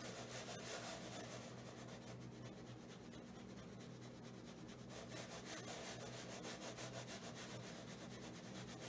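Faint rubbing of a watercolour brush's bristles on paper in many rapid short strokes, over a steady low hum.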